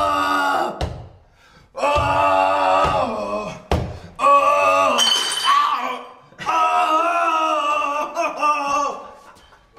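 A man's voice giving about four long, drawn-out wordless calls, each held for one to three seconds, some sliding down in pitch at the end. A few sharp knocks fall between them.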